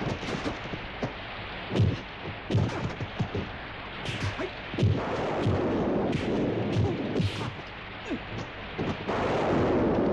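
Kung fu fight sound effects: a dozen or so sharp, irregular punch and block hits with swishes, over a steady hiss of rain.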